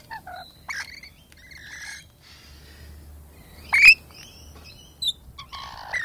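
Rainbow lorikeets calling in a string of short, high-pitched chirps and squawks, one much louder call about two-thirds of the way through.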